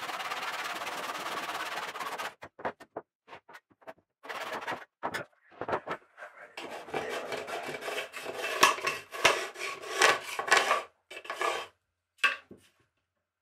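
Brass-backed hand backsaw cutting through timber in steady strokes, stopping about two seconds in. After a few scattered knocks come irregular rasping, scraping strokes on wood with sharp clicks, and one short scrape near the end.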